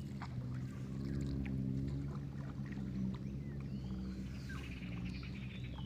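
Small boat's motor running steadily at an even pitch.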